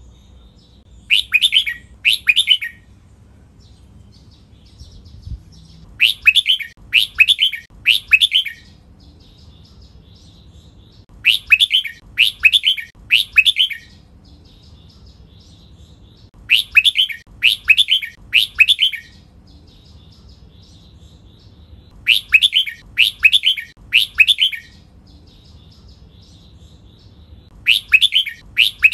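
Red-whiskered bulbul singing short, clear song phrases in groups of two or three, about a second apart, with a new group every five seconds or so. Faint soft chatter fills the gaps between groups.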